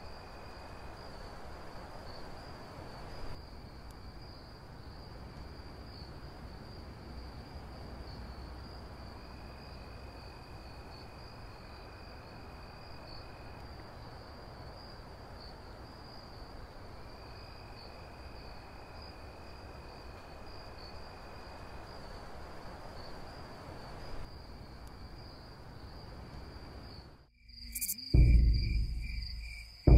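Crickets trilling steadily, a continuous high chirping with a second, lower trill that comes and goes, over a faint low rumble. Near the end it cuts off and music with heavy low drum hits begins.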